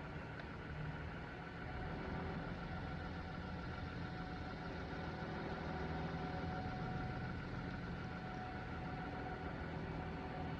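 An engine idling with a steady hum.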